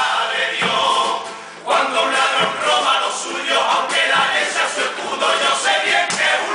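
Male chorus of a Cádiz carnival chirigota singing together in Spanish, with guitar accompaniment; the singing drops away briefly about a second and a half in, then resumes.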